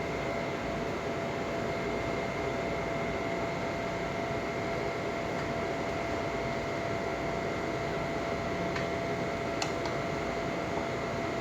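Steady background hum and hiss with faint steady tones, and a few small light clicks about nine to ten seconds in.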